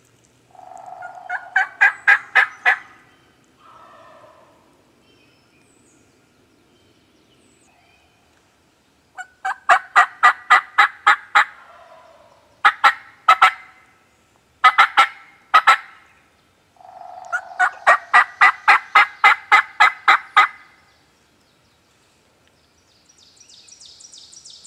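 Turkey yelping in quick runs of sharp, evenly spaced notes, about six a second, in five bursts of one to four seconds with short pauses between. Faint high chirping near the end.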